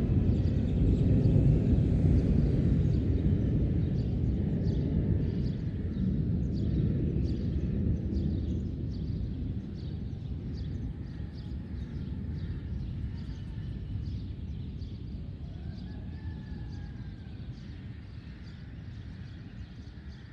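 Rolling thunder, a long low rumble that fades slowly away. A faint high chirp repeats steadily throughout.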